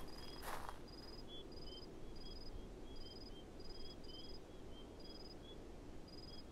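Night ambience of crickets chirping: short high chirps repeating about twice a second, with softer, lower chirps between them over a low background hiss. A single footstep on dirt about half a second in.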